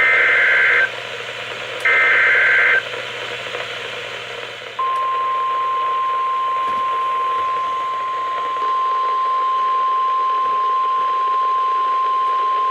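NOAA Weather Radio emergency alert signal: two SAME header data bursts, each a harsh warbling buzz just under a second long, then after a few seconds of radio hiss the steady single-pitch Weather Radio warning alarm tone starts about five seconds in and holds. This is the alert sequence announcing that a warning, here a special marine warning, is about to be broadcast.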